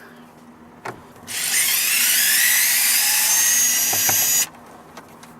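Power drill/driver with a Torx bit running for about three seconds, a steady whine that rises slightly in pitch and stops abruptly, backing out one of the screws that hold the steering-column cover. A small click comes just before it starts.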